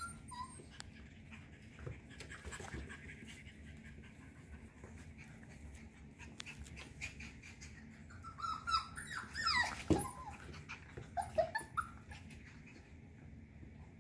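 Cockapoo puppies whining and yipping in play: a cluster of short, high cries that bend in pitch about eight to twelve seconds in, with scattered light clicks before them.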